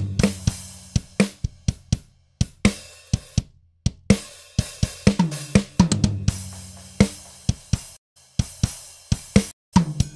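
Recorded acoustic drum kit playing back: kick, snare, toms and hi-hat with sharp, punchy hits and low drums ringing under them, run through a transient designer that sharpens the attack. The playback stops for a moment several times.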